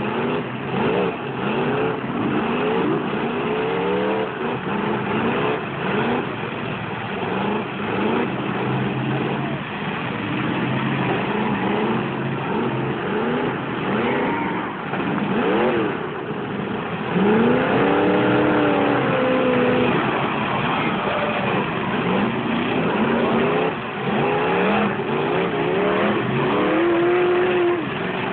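Several demolition-derby truck engines revving hard and repeatedly at once, their pitches climbing and falling and overlapping. A steady din of noise runs underneath them.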